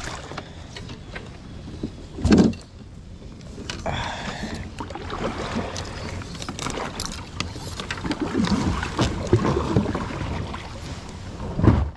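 Knocks, clatter and rustling of a fishing kayak and its gear as it is handled on the water, with a loud bump about two seconds in and another near the end.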